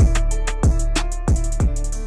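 Background music: an electronic beat with a deep bass drum that drops in pitch on each hit, about three hits a second, and crisp hi-hat ticks.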